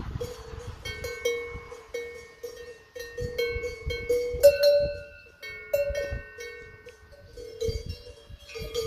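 Cowbells on grazing cows clanking irregularly as the animals move their heads. Several bells of different pitch strike and ring on, overlapping, with a short lull a little after the middle.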